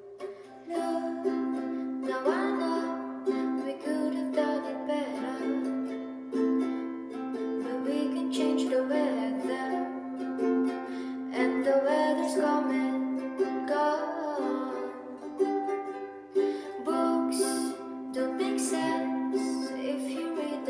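Ukulele played in chords, with a soft voice singing along in places, in a small room.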